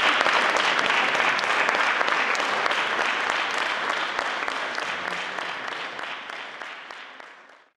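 Audience applauding, many hands clapping at once; the applause fades out steadily and cuts off near the end.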